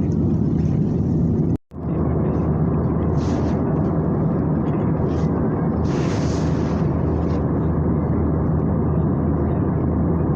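Steady low drone of an airliner cabin in flight, engine and airflow noise. It cuts out to silence for a moment about one and a half seconds in, then resumes. A few short hissing bursts ride over it, the longest about six seconds in.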